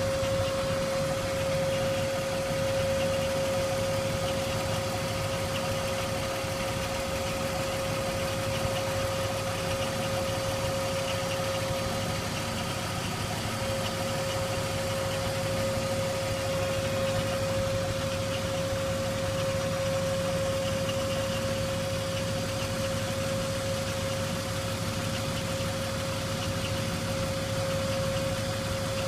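BMW E39 running at idle with a steady high whine that holds one pitch the whole time over the low engine rumble: the unexplained noise from under the car.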